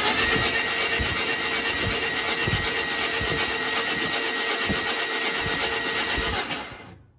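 The S10's V8 being cranked over on its starter motor with the injectors unplugged, so it turns steadily without firing. The cranking fades out and stops near the end.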